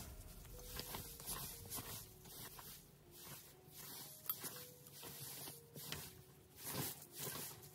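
Faint rustling and soft knocks of metal hand-drill parts being set down on a cloth, with one sharper tap a little past halfway.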